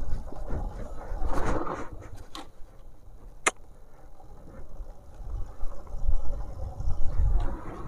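Bajaj Avenger motorcycle rolling on a push-start: an uneven low rumble from the rolling bike and wind on the microphone, with a sharp click about three and a half seconds in, while the engine fails to catch. The rider puts the failure down to the engine being cold.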